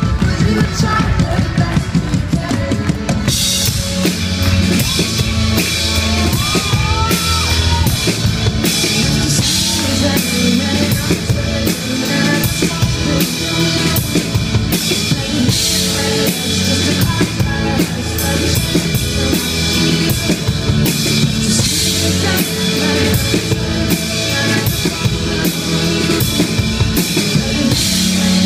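Live band playing an instrumental passage of a pop-rock song: a drum kit keeps a steady beat on bass drum and snare under keyboard chords, and cymbals come in about three seconds in.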